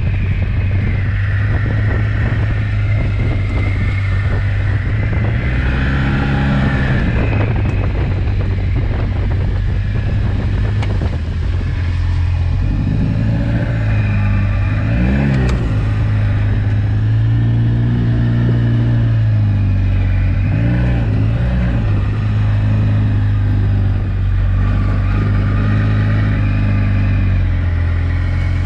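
Polaris RZR side-by-side's engine running as it is driven over a rough trail, its pitch rising and falling repeatedly as the throttle is worked. Scattered knocks and rattles come through, mostly in the first half.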